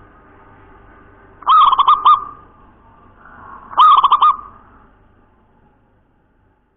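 Zebra dove (perkutut) cooing: two short phrases of quick, clear staccato coo notes, the first about a second and a half in, the second near four seconds.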